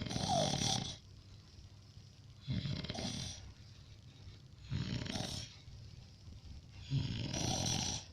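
A sleeping person snoring: four snores, one about every two and a half seconds, each a low rumble with a hiss of breath over it.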